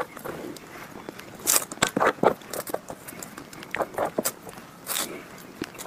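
Close-miked eating of soft chocolate mousse cake with a metal spoon: irregular wet mouth smacks and spoon clicks and scrapes.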